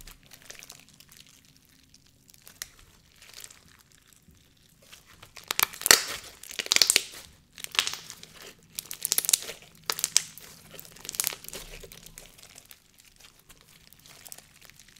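Lava rock jelly slime squeezed and stretched by hand, the embedded lava rocks crunching and crackling against each other inside the jelly. The sound is faint at first, then comes as a run of loud crackling bursts about halfway through.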